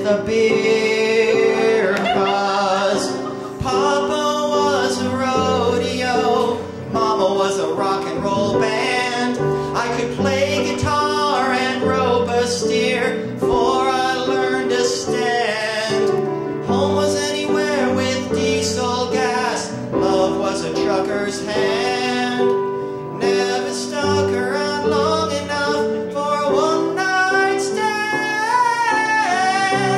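A man and a woman singing a comic duet in an operatic style, with wide vibrato, over a recorded backing track.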